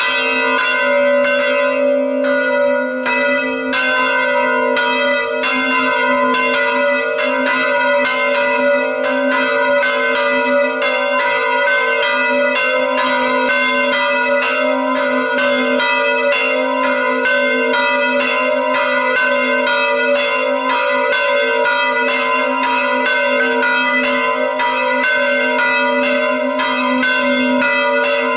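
The two largest of three electrically swung church bells ringing together, their clappers striking again and again in an uneven, overlapping rhythm over a steady hum of tones. They start suddenly right at the beginning. This is the quarter-hour call at 17:45 before the 18:00 evening Mass.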